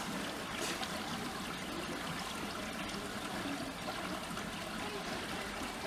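Steady trickling of running water in a penguin pool.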